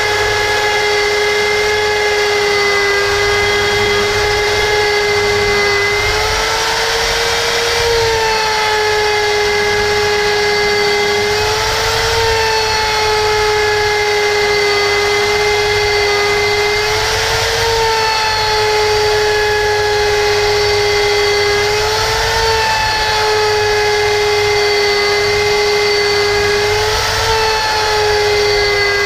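Small electric router running with a steady high whine while its bit cuts a slot into a cast-iron brake disc. About every five to six seconds a rougher cutting noise comes in briefly with a slight rise in the whine.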